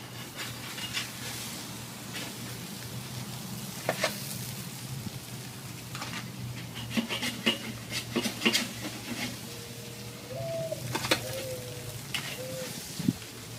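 Fish juices sizzling steadily on a hot charcoal grill, with scattered sharp clicks of a metal utensil against the grate as the salmon fillets are lifted off.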